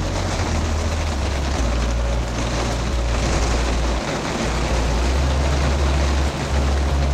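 Wind buffeting the microphone in a heavy, uneven rumble over a steady hiss.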